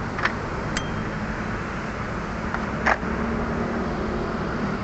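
A few light plastic clicks and handling noises as the clock spring's yellow connector is worked by hand, the loudest near the middle, over a steady background noise with a low hum.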